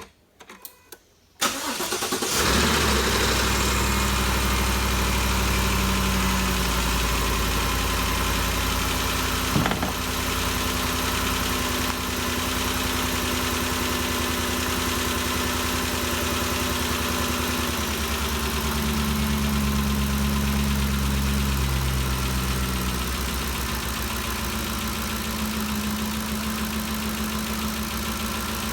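2013 Ford Expedition's 5.4-litre V8 cranked over and catching about two seconds in, then idling steadily on its first start after valve-train work. There is a single sharp click about ten seconds in, and the idle shifts slightly around twenty seconds.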